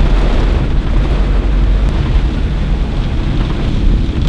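Loud, steady rumble inside a car's cabin while driving through heavy rain: rain on the roof and windscreen mixed with the car's engine and tyre noise on the wet road.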